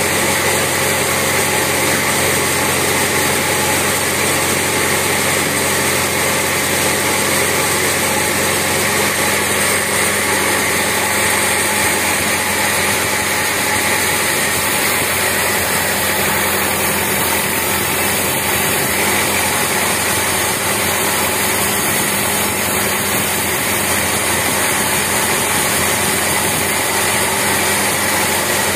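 Vertical band sawmill running steadily, its blade sawing along a teak beam on the carriage.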